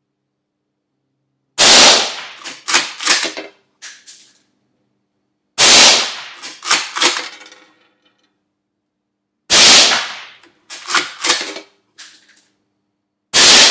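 Four shots from an Anschutz 1771 Tactical bolt-action .223 Rem rifle fitted with a Hausken reflex-type sound moderator, about four seconds apart, the last near the end. Each shot is followed by a quick run of metallic clicks as the bolt is worked to chamber the next round.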